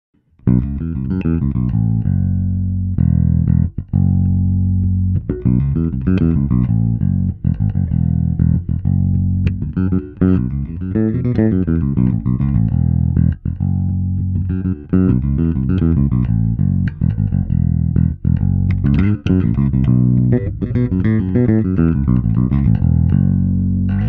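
Electric bass played through a Zoom B1X Four multi-effects pedal on its "Sans Clean" clean preamp patch: a busy line of plucked notes with a few short breaks, starting about half a second in.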